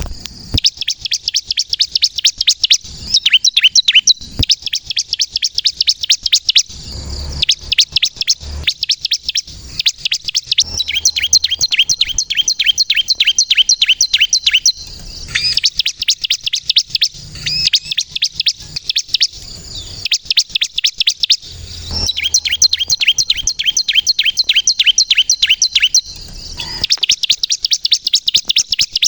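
Bar-winged prinia (ciblek kristal) singing in long, fast runs of sharp, high chirps, many to the second, broken by short pauses.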